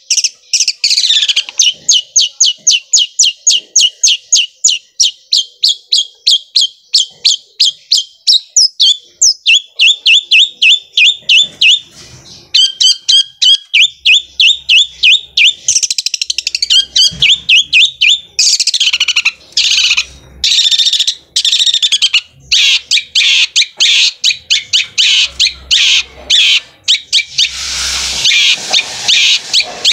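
Long-tailed shrike (cendet) singing a fast rolling run of sharp repeated notes, about four to five a second, like a sewing machine. The run is broken a few times by harsher rasping phrases.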